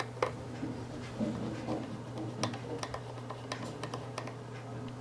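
Scattered light clicks and ticks of a small screwdriver working a screw into the circuit board of an Android TV box being reassembled, over a steady low hum.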